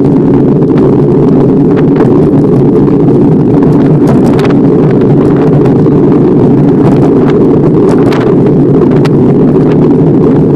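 Loud, steady rush of wind buffeting the microphone of a camera riding on a moving bicycle, with scattered sharp clicks and rattles from the bike over the path.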